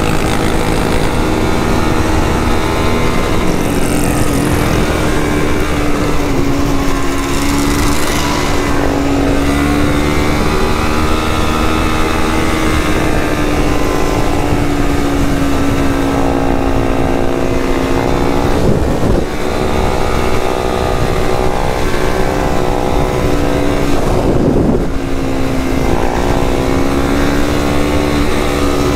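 Quad (ATV) engine running at a steady cruising speed as it is ridden down a dirt road, its pitch wavering a little with the throttle. Two short noisy rushes come about two-thirds of the way through.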